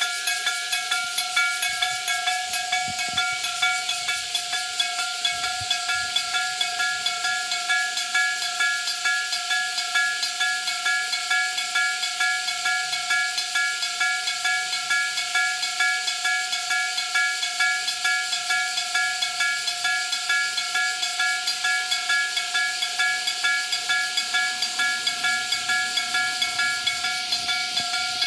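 Electric bell of a Japanese level-crossing alarm ringing continuously, struck in rapid, even strokes with a metallic ring: the crossing is warning of an approaching train.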